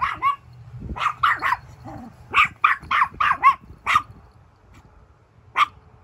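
Teacup poodle barking in high-pitched yaps, in quick runs of three to five barks, with a pause and then a single last bark near the end. This is the habit of barking at everyone and everything that she is being trained out of.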